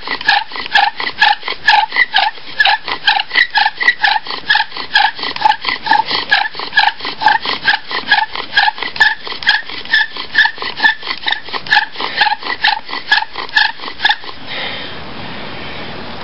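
Bow drill at work: the wooden spindle squeaks in the hearth board with every stroke of the bow, about three squeaks a second, while it smokes toward an ember. The sawing stops about 14 seconds in.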